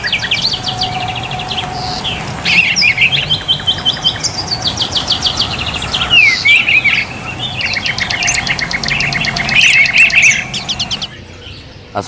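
Several songbirds singing: rapid trills, chirps and whistled glides, overlapping at times, which stop about eleven seconds in.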